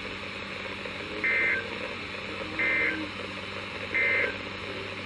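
Emergency Alert System end-of-message signal: three short data bursts about 1.4 s apart, received over a weather radio with a steady low hum and hiss underneath.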